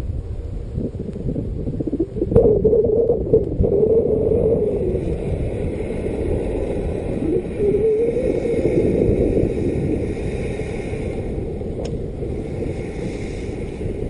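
KingTech K60G model jet turbine running as the RC jet lands and rolls along the tarmac, a wavering tone coming in about two seconds in, with heavy wind rumble on the microphone.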